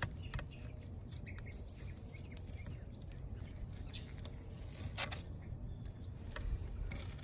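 A fillet knife cutting along a lionfish on a wooden cutting board: sparse faint clicks and ticks of the blade through skin and bone, over a low steady rumble.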